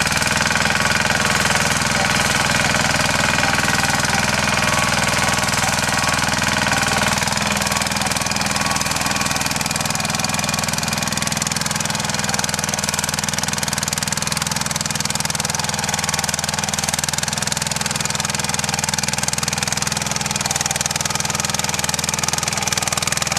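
Yağmur YET-510 walk-behind rotary tiller's engine running steadily as the machine tills garden soil.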